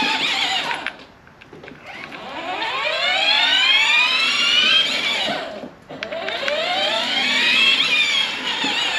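Truck belt idler pulley spun by hand on its freshly greased bearing, whirring with a whine that climbs in pitch and then falls away, three times over.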